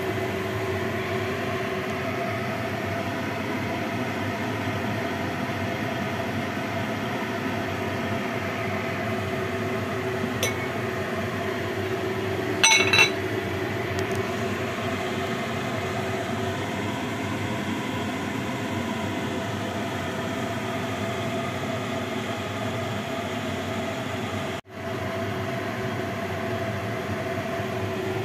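Steady mechanical hum in a kitchen. About 13 seconds in, a glass lid clinks down onto the glass soup pot, with a lighter tick a couple of seconds before.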